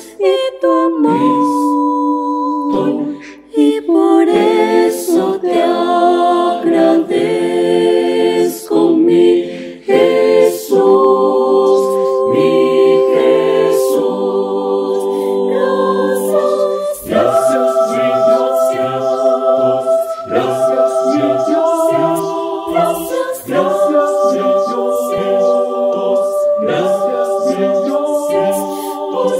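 Choir singing a Spanish-language hymn a cappella in sustained chords. A few women's voices carry it at first, and deeper men's voices come in a little past halfway as the full mixed choir joins.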